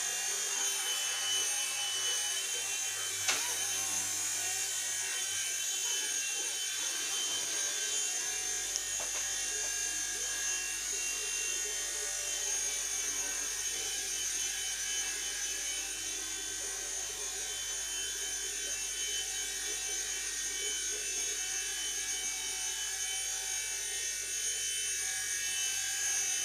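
Small indoor RC helicopter in flight: a steady high-pitched whine of its electric motors and buzz of its rotors. A single sharp click comes about three seconds in.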